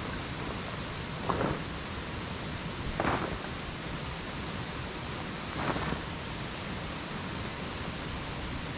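Tent fabric and a groundsheet rustling three times as they are unpacked and spread out on gravel, over a steady rushing outdoor background noise.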